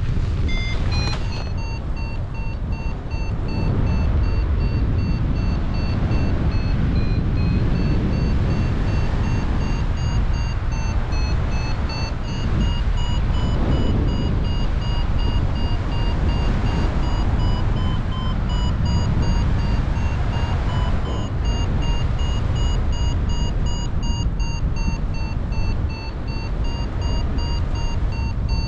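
Heavy wind buffeting the microphone in paraglider flight, with a variometer beeping over it in a steady run of short beeps whose pitch steps a little up and down as the climb rate changes. About a second in the beeps rise quickly in pitch.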